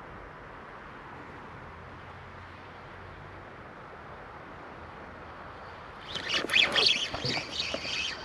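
Spinning reel cranked hard with rattling and clicking as the rod is struck on a possible bite, starting about six seconds in after a stretch of faint steady outdoor hiss.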